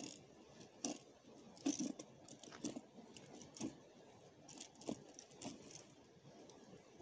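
Steel ice chisel jabbed down into an ice-fishing hole to break up the ice in it: a run of irregular sharp metallic clinks and crunches, roughly one every half second to second.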